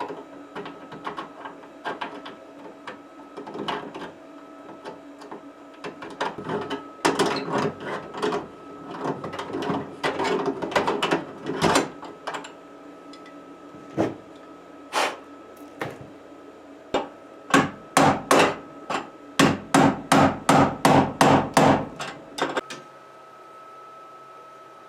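Hammer blows, scattered and irregular at first, then a quick even run of about a dozen strikes, roughly three a second, near the end.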